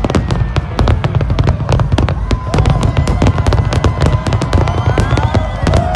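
Large fireworks display: a dense, rapid run of bangs and crackles over a steady low rumble.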